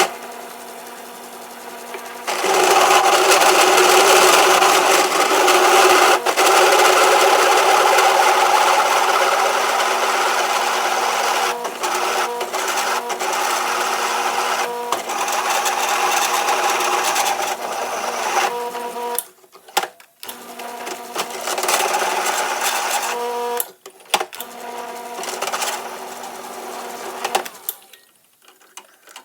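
Drill press turning a large drill bit through steel at a slowed spindle speed: a steady motor hum with a grinding cutting noise over it that comes in after a couple of seconds, breaks off twice near the end, then stops.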